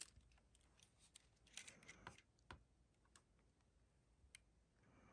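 Near silence, with a few faint, short clicks and rubs from hands handling metal camera bodies, clustered in the first three seconds.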